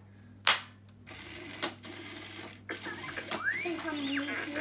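Disney R2-D2 toy robot running: a sharp click about half a second in, then a steady whir of its small motors with scattered clicks. From about three seconds in, its electronic R2-D2 whistles and warbling beeps, starting with a rising whistle.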